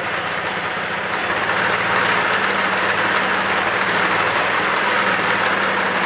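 Small engine running steadily at its lowest idle while driving a 12-volt dynamo. It grows slightly louder about a second in.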